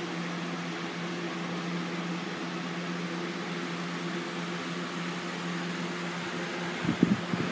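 Electric fan running, a steady hum over an even hiss. About seven seconds in, a few irregular bumps and rustles come in.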